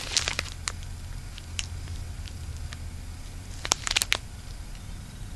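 Plastic wrapping on firecracker bricks crinkling as the packs are handled, in short scattered rustles with a brief cluster of crinkles about three and a half seconds in. A low steady hum runs underneath.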